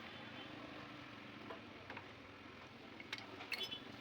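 A few light metallic clicks and clinks, like hand tools against motorcycle engine parts, near the end, over a steady faint background noise.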